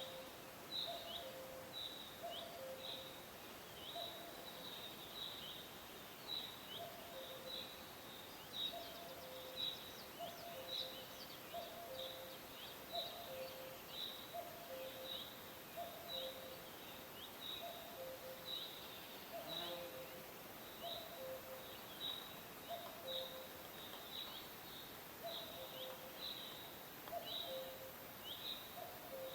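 Common cuckoo calling its falling two-note "cuck-oo" over and over, about once a second. A smaller bird keeps up short, high, falling chirps about twice a second, over a faint steady hiss of forest ambience.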